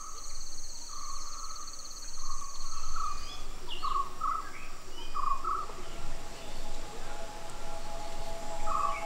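Birds calling with repeated short whistled chirps, over a high, steady insect trill that cuts off about a third of the way in.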